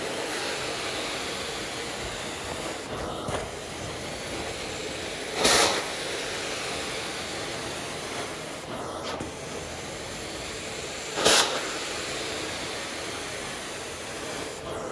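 Carpet-cleaning extraction wand running on a synthetic rug: a steady rushing hiss of suction, with two short, louder surges about six seconds apart as the strokes repeat.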